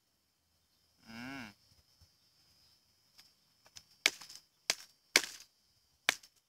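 Flint being knapped by hand: four sharp stone-on-stone strikes of a quartz hammerstone on a flint core in the second half, about half a second to a second apart. A brief animal call sounds about a second in.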